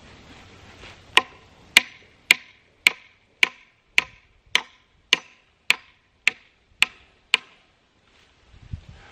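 Hammering at a wooden fence post while fastening welded wire fence: about a dozen even blows, roughly two a second, each with a short ring.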